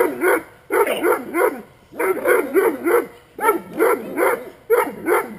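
Large dog barking hard and fast, in volleys of about five quick barks each lasting about a second, with short pauses between: guard-dog warning barking at a man standing in front of it with a stick.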